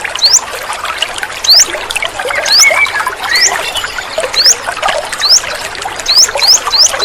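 Water trickling steadily while a bird repeats a short, high, rising chirp about once a second, the chirps coming in quick twos and threes near the end. Softer, lower twittering notes from another bird join in the middle.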